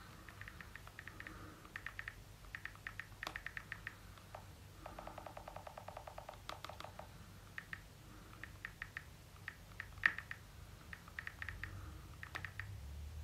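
Typing on an iPhone 13's touchscreen keyboard: quick runs of small clicks in short groups, with a faster, even run of ticks about five seconds in.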